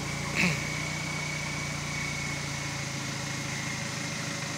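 Toyota 4Runner's turbo diesel engine running steadily at low revs while crawling over rocks, with a steady high whine over it. About half a second in there is one short, loud sound that sweeps quickly down in pitch.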